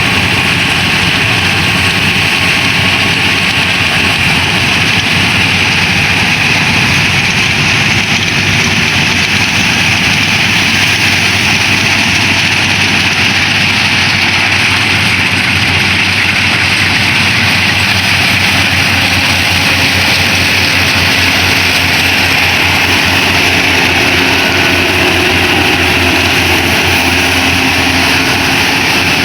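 Yanmar AW70 VW combine harvester running steadily, its diesel engine and machinery making a constant, unbroken drone with a high whir over it.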